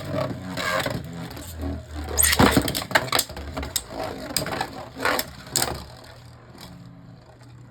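Two Beyblade Burst spinning tops whirring in a plastic stadium, with a run of sharp clacks as they collide, most of them between about two and six seconds in; the whirring goes on more quietly after that.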